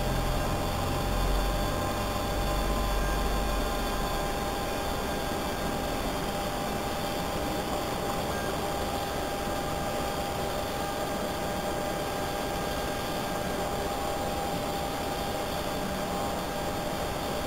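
Steady hiss with a faint, steady high-pitched tone from an electronic throttle body on a bench test rig, its DC actuator motor powered by a PWM drive. A low rumble sits under it for the first few seconds.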